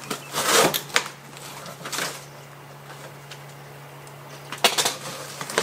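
Cardboard shipping box and its packing being handled: short rustling, scraping bursts as it is pulled open and reached into, a quiet stretch, then a few sharp crackles near the end.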